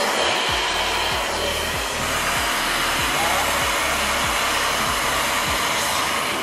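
Kaisa Villa handheld vacuum cleaner running steadily: a loud whirring motor and rushing air with a high whine.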